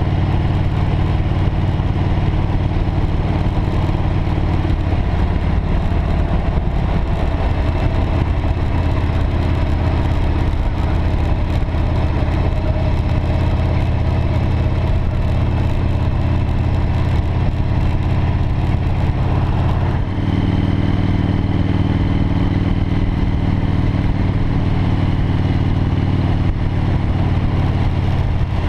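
V-twin cruiser motorcycle engine running steadily at road speed, with wind rush, heard from on the bike. The engine note changes abruptly about two-thirds of the way through.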